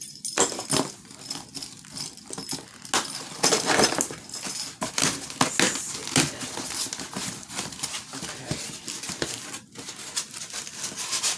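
Rustling and crinkling of packaging being handled and opened, a dense run of irregular crackles and scrapes.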